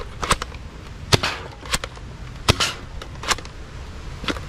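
Nerf Dual-Strike spring-powered toy blaster being primed and fired repeatedly: about six sharp snaps, roughly one a second.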